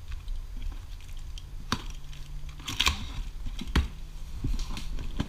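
Scattered clicks and knocks with light rustling: the packaging and layers of a large mechanics tool set being handled and opened.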